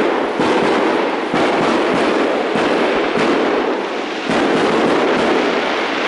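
Loud, dense crackling rustle of clothing and gear rubbing against a body-worn camera's microphone while walking, swelling and easing about once a second in time with the strides.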